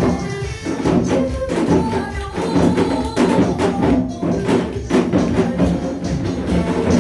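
Janggu, Korean hourglass drums, struck together in a steady rhythm of about two beats a second over a recorded backing song.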